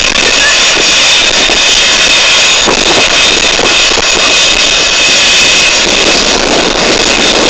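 Eurocopter EC135 air-ambulance helicopter's turbines running while it sits on the ground: a loud, steady whine with two high tones held over a rushing hiss.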